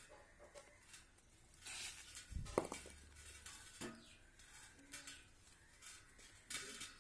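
Small metallic clicks and rattles of a wire cup brush's arbor being fitted into a keyless drill chuck and the chuck twisted tight by hand, with one louder thump about two and a half seconds in.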